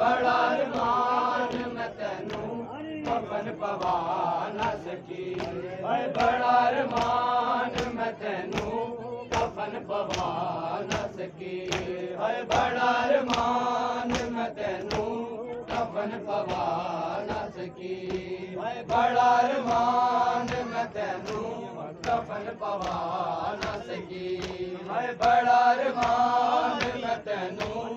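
A noha, the Muharram lament, chanted by men's voices in phrases, over a steady rhythm of open-hand slaps from men beating their chests in matam.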